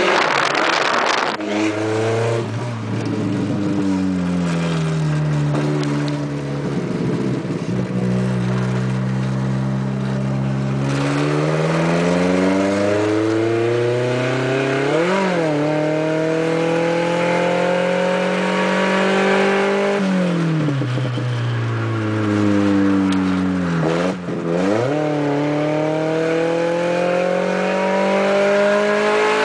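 Volkswagen Saveiro pickup's engine and exhaust running hard with a loud note. Its pitch rises and falls slowly over several seconds as it accelerates and eases off, with two quick breaks in pitch, about halfway through and near the end.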